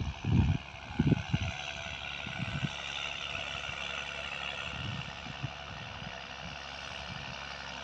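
Farm tractor running in the distance, a steady engine drone, with gusts of wind buffeting the microphone in the first second or so.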